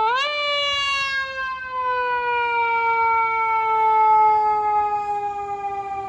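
Fire engine siren wailing: it sweeps up quickly just after the start, then falls slowly in pitch and fades as the truck pulls away.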